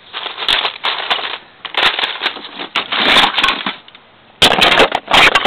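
Handling noise close to the microphone: three bursts of clattering and rubbing, with sharp clicks, with short lulls between them.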